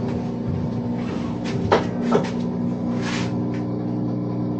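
Whirlpool washing machine running its test and reset cycle after a control-board replacement: a steady mechanical hum with several short clicks and knocks as it works through its components, and a brief rushing burst about three seconds in.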